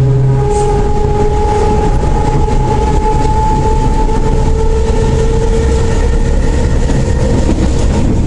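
CPTM Série 4400 electric train's traction motors whining loudly over the heavy rumble of the train, described as the motor roaring loud. Two whining tones drift slowly in pitch, and the higher one fades about halfway through. A deep hum cuts off about half a second in.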